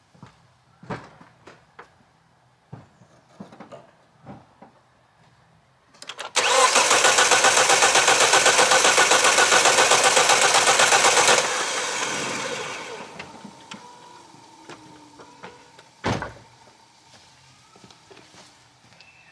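A 2006 Volvo V70's 2.4-litre five-cylinder engine being cranked over by the starter motor for about five seconds with an even pulsing rhythm, then winding down. It does not fire because the fuel system has been emptied for a compression test, and the gauge on cylinder 1 builds to 12 bar. A single thump follows a few seconds later.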